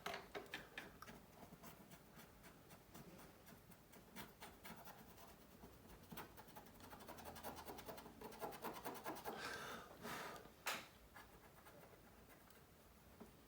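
Faint scratching and small irregular clicks of a tool scraping glue and adhesive off a phone's frame, with one somewhat louder scrape about eleven seconds in.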